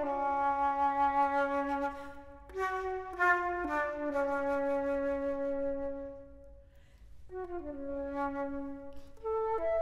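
A concert flute plays alone: long held low notes joined by short descending and stepping runs. About six seconds in a held note fades almost to nothing, and the flute comes back in about a second later.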